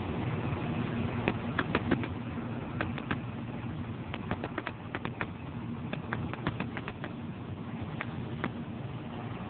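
Scattered sharp clicks and taps, some in quick bunches, from windows being wiped and handled, over a steady low background hum.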